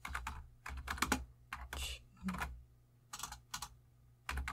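Typing on a computer keyboard: short runs of quick keystrokes broken by brief pauses, over a faint steady low hum.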